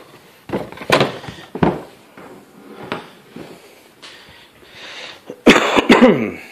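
Cardboard carrying case being handled: a few scrapes and bumps of cardboard, then a louder rubbing creak near the end.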